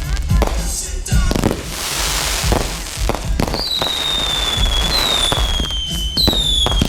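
Fireworks going off: a run of sharp bangs and crackling bursts. About halfway through come three high whistles one after another, each sliding slightly down in pitch.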